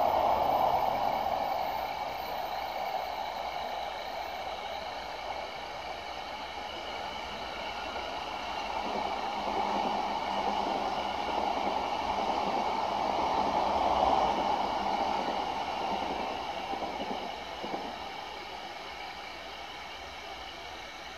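Electric trains running past on the line. First, an E261 Saphir Odoriko express fades away over the first few seconds. Then a Keihin-Tohoku Line commuter train's wheels rumble on the rails, building to loudest about 14 seconds in and fading out toward the end.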